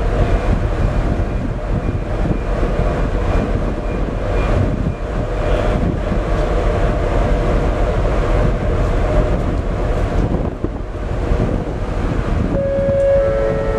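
Wind buffeting the microphone over the steady rumble of a car ferry under way at sea. Near the end, two steady notes sound one after the other, the second lower.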